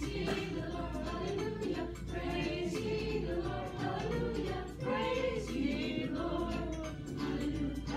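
A Christian song sung by a group of voices, mainly female, over musical accompaniment, with a steady low hum beneath.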